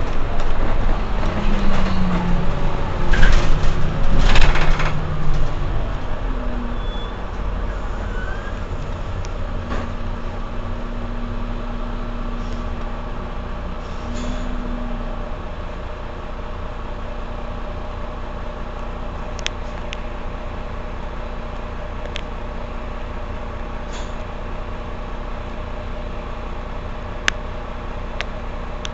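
Mercedes-Benz Citaro C2 Euro 6 city bus standing with its diesel engine idling. About three and four seconds in come two loud hisses of compressed air from the bus's pneumatics, then a steady, even idle.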